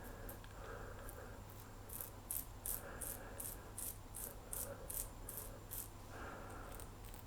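Short rasping scrapes of a quad-edge safety razor cutting through lathered stubble, about three strokes a second for several seconds.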